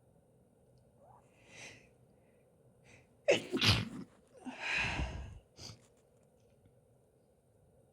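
A woman sneezes hard about three seconds in, after a faint breath in, and lets out a long breathy exhale right after.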